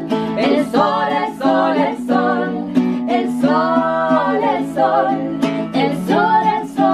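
Women singing a song in Spanish, accompanied by an acoustic guitar.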